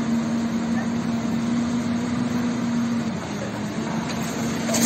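Demolition excavator's diesel engine running steadily, its pitch dipping slightly about three seconds in.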